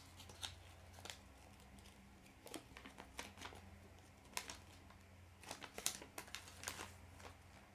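A folded paper leaflet being unfolded and handled: faint, scattered paper rustles and crinkles, coming in two clusters.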